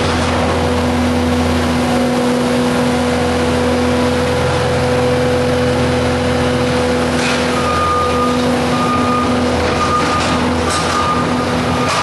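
Compact track loader's diesel engine running steadily with a steady whine while it sets a bundle of alfalfa bales down on a hayrack. From about eight seconds in, its backup alarm beeps repeatedly as it reverses away.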